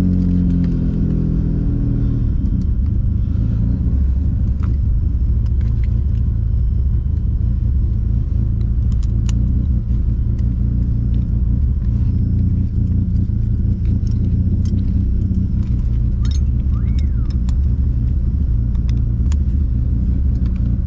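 Turbocharged VQ35DE V6 of an Infiniti G35 coupe heard from inside the cabin, running at low revs with a steady deep drone as the car creeps along. Light clicks and rattles come through on top.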